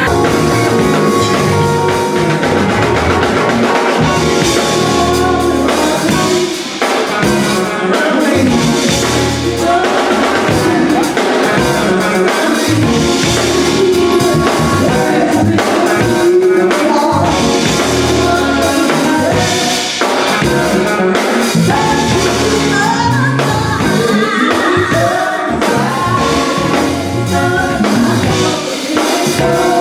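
A live band playing, with a lead vocal over a drum kit, bass and keyboards.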